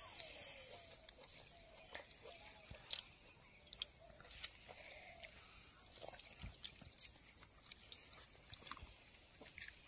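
Faint sounds of eating water rice by hand from a steel bowl: scattered soft clicks and taps, over a steady high hiss.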